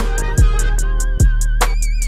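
Hip-hop beat: deep kicks that drop in pitch, a fast steady hi-hat, and a wavering, violin-like high melody.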